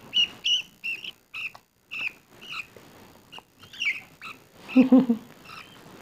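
Budgerigar chicks chirping while being spoon-fed: a string of short, high peeps, about two a second.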